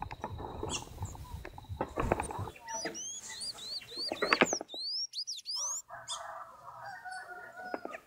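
Small songbirds at a fruit feeder: a run of high, squeaky rising chirps in the middle, about three a second, among fluttering wings, rustling and clicks of birds landing and feeding.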